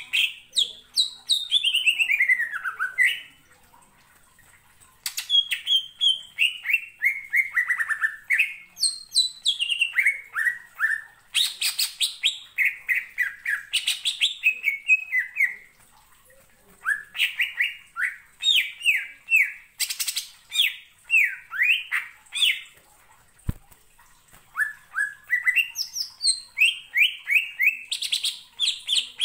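Male cucak ijo (green leafbird) singing. It gives runs of quick, loud notes that mostly slide down in pitch, broken by short pauses and a few sharp chips. A single faint knock comes about 23 seconds in.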